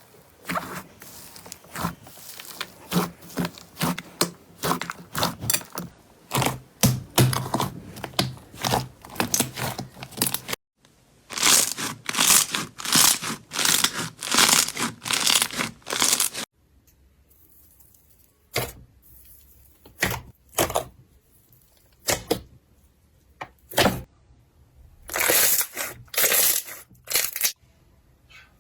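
Slime being squeezed, stretched and poked by hand, making sharp crackling and popping sounds. A fast run of crackles gives way to louder crinkly squishes about twice a second, then to scattered single pops.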